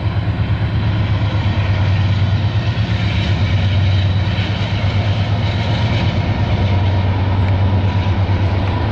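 Norfolk Southern freight train's GE diesel locomotives passing on a bridge overhead, their engines running with a loud, steady low drone. Double-stack container cars follow, rolling past near the end.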